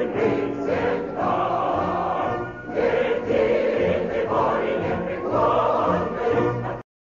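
A choir singing, many voices together; the music cuts off suddenly near the end.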